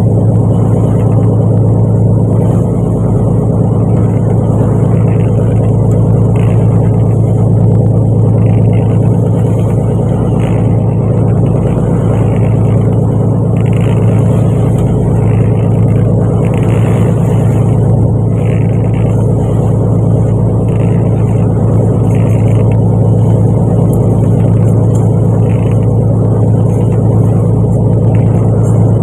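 Fishing boat's engine running steadily, a loud, even, low hum that holds the same pitch throughout.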